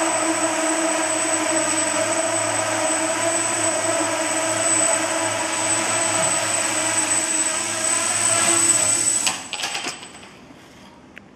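Homebuilt quadcopter's electric motors and propellers running with a loud, steady whine and a high whistle over it. About nine seconds in, the motors are cut off by the kill button, with a brief clatter.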